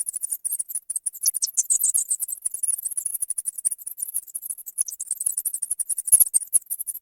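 Bat chittering: a rapid, unbroken stream of very high-pitched squeaks and chirps, with a few sharper clicks about six seconds in.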